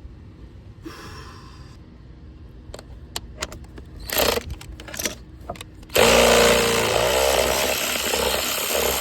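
A few tool clicks and knocks, then about six seconds in a power tool starts up and runs steadily for several seconds. It is loosening a seized oil pressure switch with a special socket, and the switch comes off.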